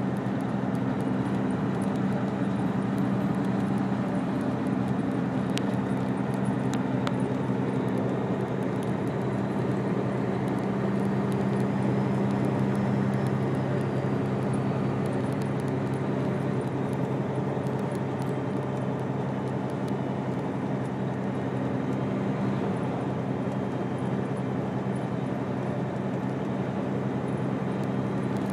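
Steady engine drone of a moving vehicle: a constant low hum over a rushing noise, with two faint ticks a few seconds in.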